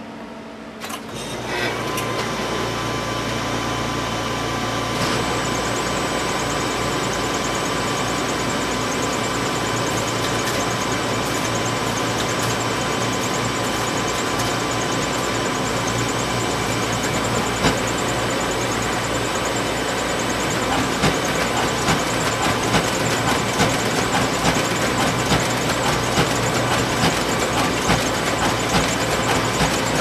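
Photocopier starting up about a second in, then running with a steady mechanical hum and whine. From about two-thirds of the way through, regular clicks come roughly once a second.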